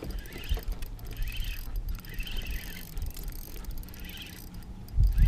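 Low rumble of wind on the microphone, with faint high chirps about once a second. A sudden loud rumble comes near the end.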